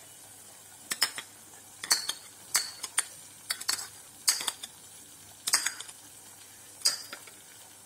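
A metal spoon scraping and clinking against a bowl and a saucepan as ketchup is spooned in, with a short sharp scrape or clink about once a second.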